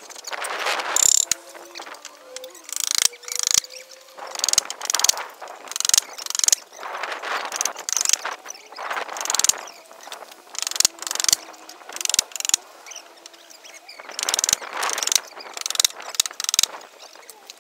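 Wooden planks being handled: irregular bursts of scraping and rattling about every second or two, with a few sharp knocks of board on board.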